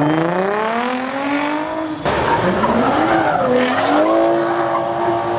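Car engine revving hard while its rear tyres spin and skid in a burnout. The pitch climbs, changes abruptly about two seconds in, then dips and rises again to a steady high rev near the end.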